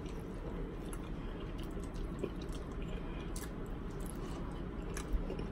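Quiet steady low hum with scattered faint clicks and small wet ticks.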